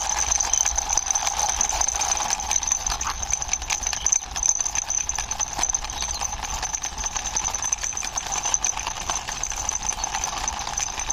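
Plastic toy flying horse pushed along by hand, its wheels rolling with a steady rattle of small clicks.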